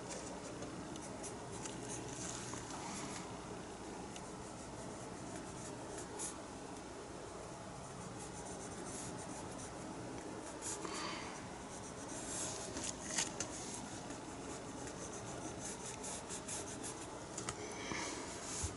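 Faint scratching and rubbing of a paintbrush working acrylic paint onto a surface, in short, irregular strokes, with a few louder strokes in the middle and near the end.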